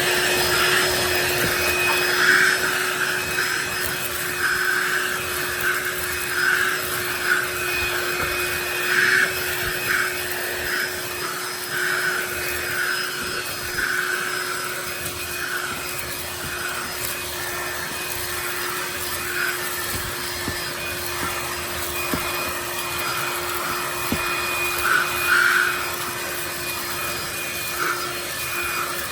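DeWalt 20V DCV501HB cordless handheld vacuum running with a steady motor whine, its round brush working over carpet, which adds an uneven scrubbing noise that swells and fades as it picks up a mess.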